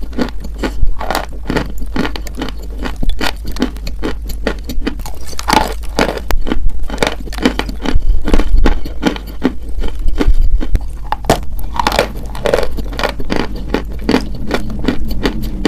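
Close-miked eating: crunchy food being bitten and chewed, with a steady stream of rapid, irregular crunches and crackles.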